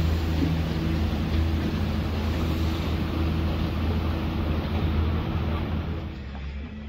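An engine running steadily: a low, even drone with a noisy rushing wash over it, growing quieter near the end.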